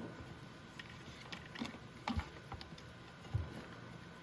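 Light scattered clicks and taps of wires and plastic connectors being handled, with two short louder knocks about two and three and a half seconds in.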